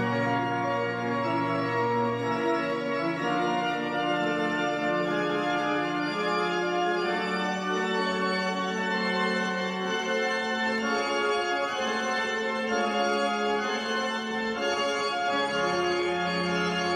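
Organ playing slow, held chords, the notes changing every second or two over a sustained bass line.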